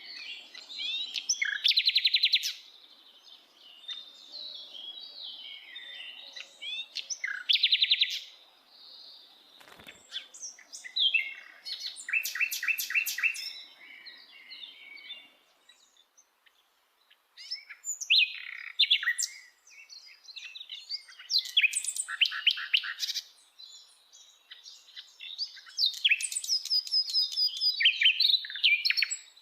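Common nightingale singing a run of varied phrases, several of them fast trills of rapidly repeated notes, with a short pause about halfway through.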